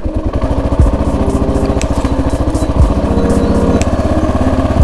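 Kawasaki KLR650's single-cylinder four-stroke engine running steadily at low trail speed, with an even, fast pulse. Two low thumps come about one and three seconds in.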